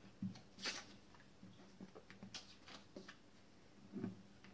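Faint, scattered taps and rustles of paper crafting: a glue stick rubbing and a popsicle stick being pressed onto a red paper flower on a plastic-covered table. There are light knocks about a second in and again near the end.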